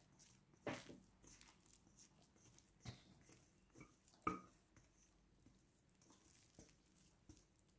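Faint, soft squelches and light knocks of very slack, well-risen focaccia dough sliding out of a metal bowl into a glass baking dish: three small sounds, the loudest just after four seconds, otherwise near silence.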